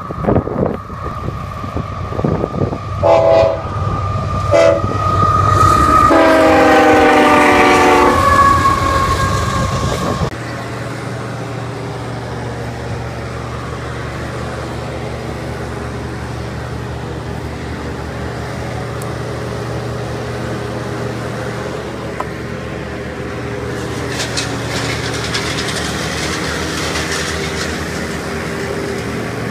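Freight train's diesel locomotive horn as the train approaches: two short blasts about three and four and a half seconds in, then a longer chord blast, over the rumble of the train. About ten seconds in the sound cuts to a steady low engine rumble.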